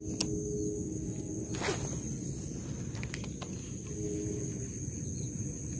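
Crickets or similar insects chirring steadily in a marsh, over a low background hiss, with a few light clicks.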